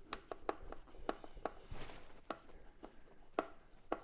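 Torx screwdriver turning out the screws that hold the control module to a plastic headlamp housing: irregular light clicks and ticks, with a short scraping rasp about two seconds in.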